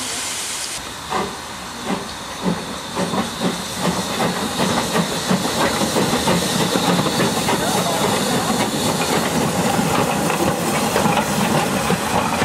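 Hudswell Clarke saddle-tank steam locomotive 'Slough Estates No. 3' starting away: exhaust chuffs begin about a second in and quicken as it gathers speed, over a steady hiss of steam.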